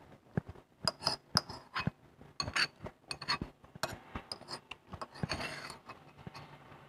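A metal spoon clinking and scraping against a ceramic bowl while eating: many short, irregular clinks.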